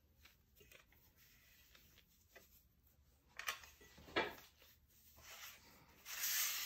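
Cheesecloth rustling and rubbing as hands smooth and tuck it around a raw rib roast on a wire rack, in soft scattered strokes, with a light knock about four seconds in and a longer, louder rustle near the end.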